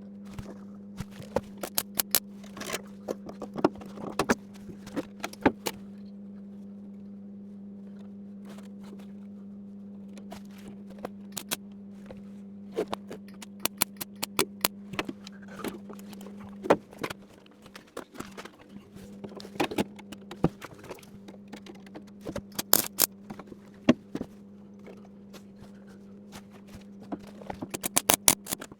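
Thin TIG welding filler wire being bent and handled into a frame, giving scattered sharp clicks and taps in quick clusters. A steady low hum runs underneath and cuts out briefly about seventeen seconds in.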